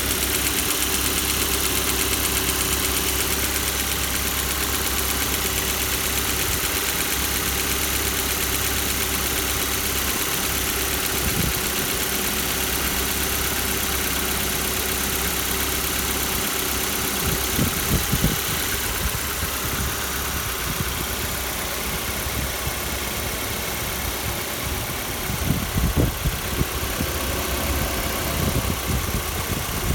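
Kia Soul (second generation) 1.6-litre engine idling from a cold start with a knock, the cold-engine knock the owner is showing. A few louder irregular bumps come about two-thirds in and again near the end.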